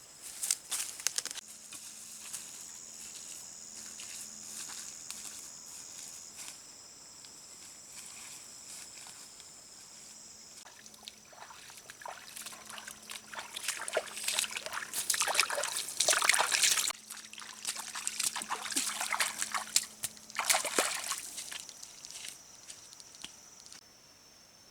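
Water sloshing and trickling in irregular bursts, loudest about two-thirds of the way through, over a steady high-pitched whine.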